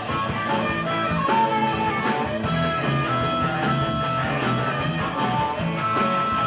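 Live band playing an instrumental break with electric guitars, bass, drums and keyboards, with held lead notes over a steady beat.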